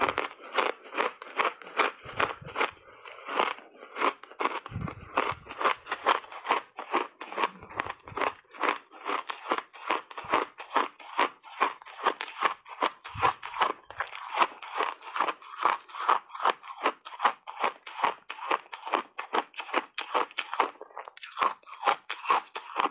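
Blended shaved ice being chewed in big mouthfuls: rapid crunching, about three crunches a second, with a short pause near the end.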